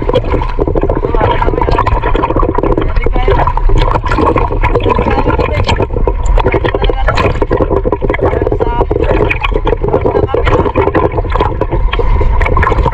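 Choppy sea water sloshing, gurgling and splashing against a camera riding at the surface as a swimmer moves through the waves; a steady, loud wash broken by many small splashes.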